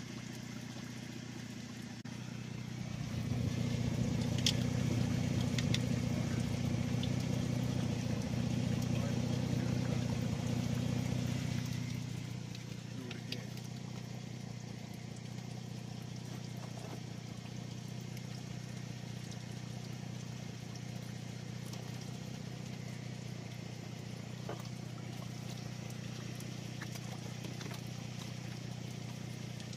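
A vehicle engine idling steadily. It swells louder for several seconds a few seconds in, then settles back to a lower steady idle.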